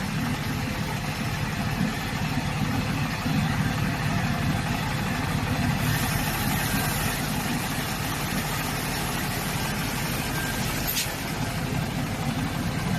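Engine of a core drilling rig running steadily. A hiss comes in about halfway through, and there is one sharp click a few seconds later.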